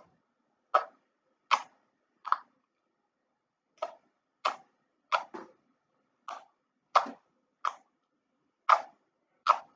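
Homemade glossy slime being squished and pressed, giving sharp clicking pops, about a dozen at uneven intervals.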